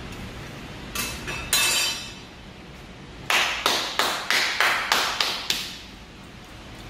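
A person clapping hands in a quick, even run of about eight claps. Two short hissy sounds come about a second in, before the claps.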